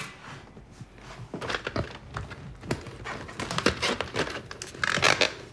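Plastic cassette cases clicking and clattering as they are handled and shuffled in a storage compartment: a run of irregular light knocks, sparse at first and busier after about a second and a half.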